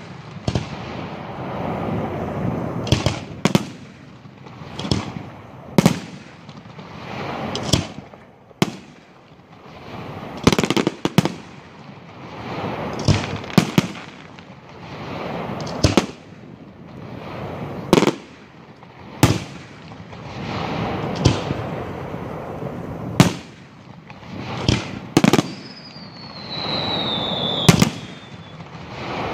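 Aerial firework shells bursting in a steady barrage: a sharp bang every second or two with a low rumble between them. A falling whistle sounds near the end.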